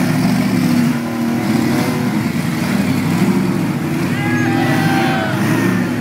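Ultra4 rock-crawler race buggies' engines running and revving unevenly at low speed as they crawl over boulders.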